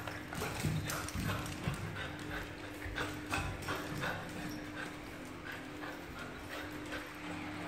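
A French bulldog's claws clicking and scrabbling on a tiled floor as it tugs at a chew and runs about: quick, irregular ticks, densest in the first four seconds. A steady low hum runs underneath.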